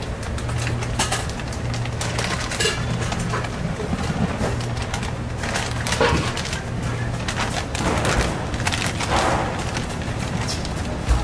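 Plastic bag crinkling and dry powder pouring into a stainless-steel pot, with scattered crackles. A low hum comes and goes underneath.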